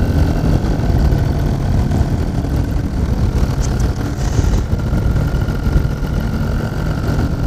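Motor paraglider's engine and propeller running steadily in flight: a steady whine over a dense low rumble.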